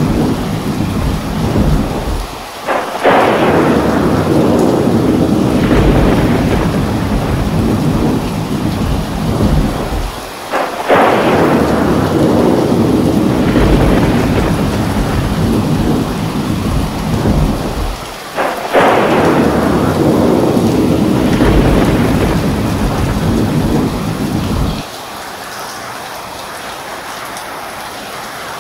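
Heavy rain with thunder: three sharp thunderclaps about eight seconds apart, each rolling off into a long low rumble over the steady rain. Near the end the rumble cuts off suddenly, leaving quieter steady rain.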